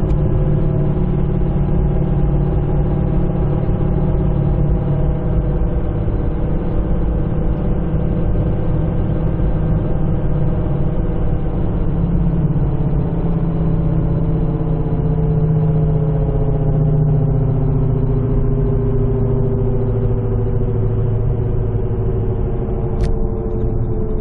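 Car cabin noise at highway speed: road and drivetrain drone with a steady howl from a failing wheel bearing, which the owner later pins on the right front bearing. In the second half the tones slowly sink in pitch as the car slows.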